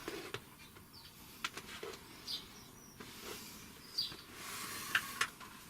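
Small birds twittering faintly: a few short, high chirps with quick downward sweeps and some sharp ticks, spaced irregularly.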